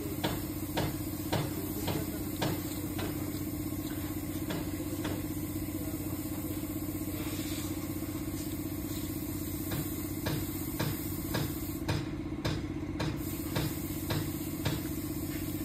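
Dog crunching dry biscuits, sharp crunches about two a second that thin out for several seconds midway, over a steady engine-like hum.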